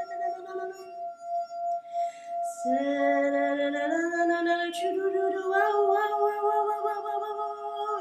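A wine glass rubbed around its rim sounds one steady ringing tone throughout, while a woman sings long held notes against it. Her voice fades out about a second in, comes back lower at about two and a half seconds, and then steps up in pitch several times.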